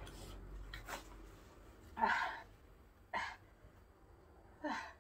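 A person's breathy gasps and sniffs, three short bursts with the first the loudest, as a runny nose from very spicy food is wiped into a tissue.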